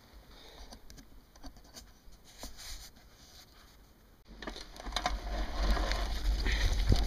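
Sport-On Explorer II off-road handbike rolling down a dirt forest track from about four seconds in: tyre crunch on dirt and stones, rattling clicks from the frame, and rumble of wind on the microphone, growing louder. Before that, only faint scattered ticks while the bike stands nearly still.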